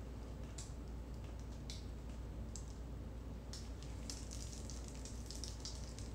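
Fluid acrylic paint dripping off the edges of a tilted canvas onto the covered table: scattered soft wet ticks that come thicker from about three and a half seconds in, over a steady low hum.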